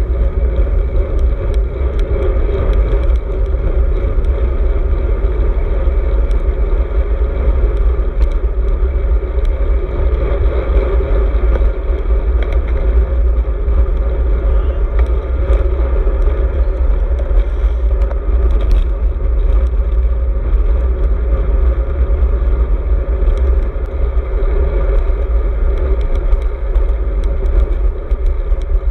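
Wind buffeting the microphone of a handlebar-mounted GoPro Hero 4 on a moving road bike: a loud, steady low rumble, with the bike's tyre and road noise beneath and scattered faint clicks.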